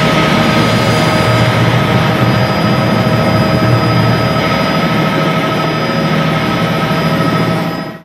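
Aircraft in flight: steady, loud engine noise with a constant whine over a dense low hum, fading out right at the end.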